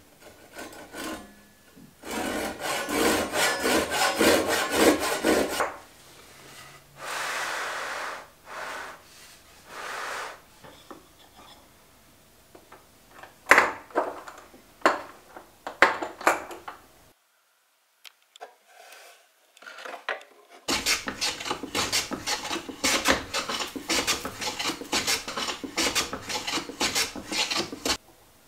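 Handsaw cutting maple: two runs of quick, even back-and-forth strokes, about three a second, one near the start and a longer one over the last third. In between come softer swishes, a few sharp knocks and a few seconds of near silence.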